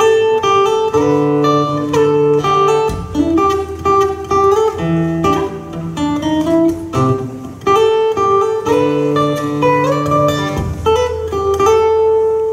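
Acoustic guitar played alone in an instrumental interlude of a pop song: a picked melody over bass notes, ending on a long held note.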